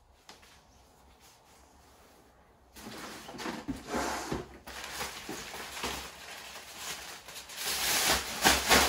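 A plastic shower curtain rustling as it is pulled out of a plastic tub and shaken open. The rustling starts about three seconds in after a quiet stretch and grows loudest near the end.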